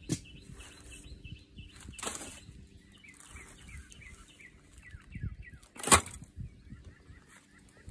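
Rustling and handling noises as items are taken out of an Igloo soft cooler bag, with a few sharp clicks and one loud knock about six seconds in. Small birds chirp in quick repeated series in the background.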